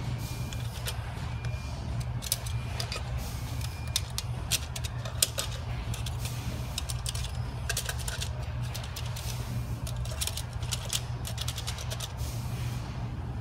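Steel coil springs of a 6DCT450 (MPS6) dual-clutch assembly clicking and clacking in their plastic retainers as they are pushed around by hand, in short clusters of sharp clicks. The springs move with the slack typical of spring fatigue, a common problem in these units. A steady low hum lies underneath.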